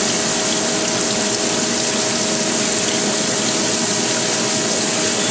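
Wasino Meister V3 CNC surface grinder slot grinding a punch with a dressable ceramic wheel: a steady, loud hiss of coolant flowing over the spinning wheel and workpiece, with a faint steady machine hum underneath.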